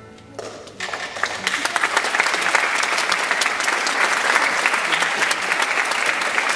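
The orchestra's last low note fading away, then the audience breaking into applause under a second in and building to steady clapping.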